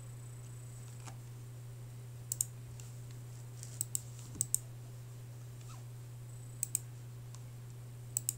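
Computer mouse clicks, each a quick press-and-release pair, five pairs spread unevenly through the stretch, over a steady low electrical hum.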